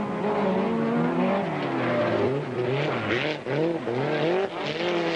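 Autocross race car engines revving, their pitch rising and falling, with two bursts of hiss from wheels on loose dirt, about three seconds in and near the end.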